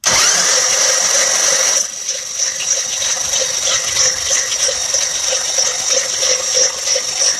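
Electric motor whirring at a steady high pitch, with a slight pulse, as it turns over a Nailhead V8 with its cylinder heads off. It starts suddenly and gets a little quieter about two seconds in. This is a test of whether the hard-to-turn engine spins more freely after penetrating oil.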